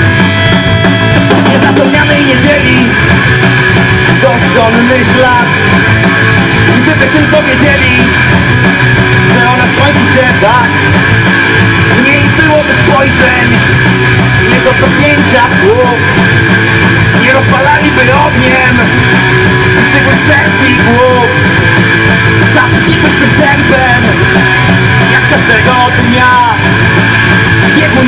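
Rock band playing live: electric guitars and a drum kit, with a man singing lead into a microphone.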